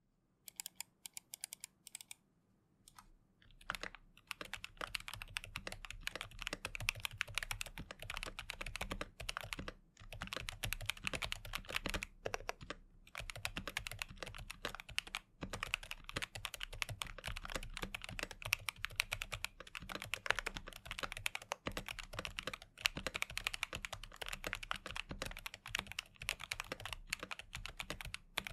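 Typing on a full-size CoolKiller CK108 magnetic-switch keyboard fitted with lubed Outemu Dida silent switches. A few separate key presses in the first two seconds, then steady continuous typing from about four seconds in, with brief pauses.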